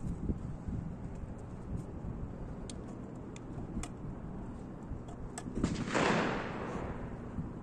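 Small clicks and knocks of a shotgun shell being taken from a pouch and handled at an open break-action shotgun. About six seconds in, a louder rushing burst of noise swells and fades over about a second.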